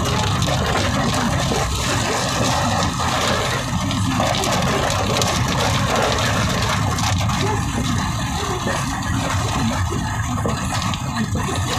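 Heavy monsoon rain falling in a steady, dense hiss, with a continuous low rumble underneath.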